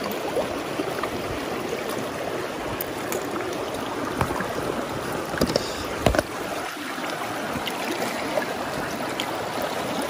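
Fast mountain stream rushing and gurgling close at hand, with a few sharp knocks, the loudest about six seconds in.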